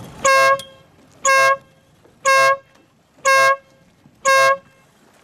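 A race committee's horn sounding five short, evenly spaced blasts, about one a second. This is the final-seconds countdown to a sailboat race start.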